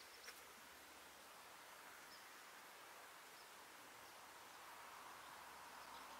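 Near silence: faint outdoor rural ambience with a steady soft hiss, and a couple of faint clicks just after the start.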